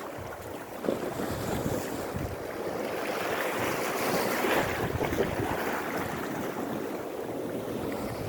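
Sea waves surging onto rocks and pebbles, swelling to a loud wash about halfway through and then easing back, with wind buffeting the microphone.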